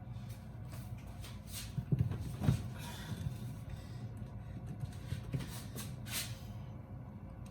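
A refrigerator being pushed and tugged: two dull knocks close together about two seconds in, with fainter scuffs, over a low steady hum.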